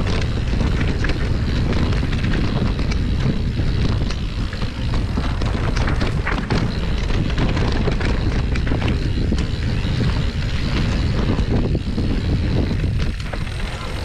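Mountain bike riding down a dry dirt singletrack, with wind rumbling on the microphone. The tyres run over rough ground, with frequent clicks and rattles from the bike.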